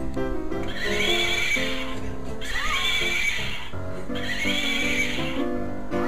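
Three horse whinnies, each about a second long, over background music.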